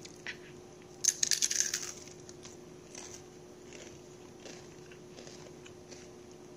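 Crunch of crispy fried chicken skin being bitten: a dense crackle lasting about a second, starting about a second in, followed by faint chewing clicks.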